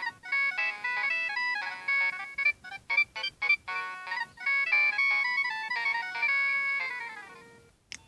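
A Nokia 6610i's loudspeaker playing one of its preloaded polyphonic ringtones: a quick, bright melody of short notes with several sounding together. It fades out just before the end, followed by a brief key click.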